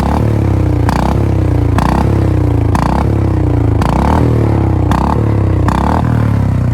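Royal Enfield Bullet single-cylinder motorcycle engine blipped repeatedly, about once a second, with the revs falling away between blips. A sharp pop comes at each blip, the exhaust misfire the rider calls 'ammunition' going off.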